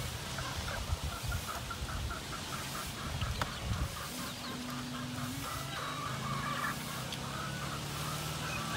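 A chicken clucking in a quick run of short, evenly spaced calls. A low steady hum joins underneath about halfway through.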